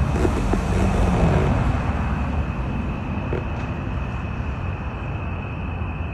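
Car engine idling close by: a steady low rumble under an even hiss, with a thin steady high-pitched tone above it.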